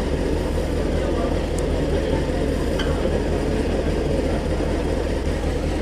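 Honda CBF600's inline four-cylinder engine idling steadily, with no revving.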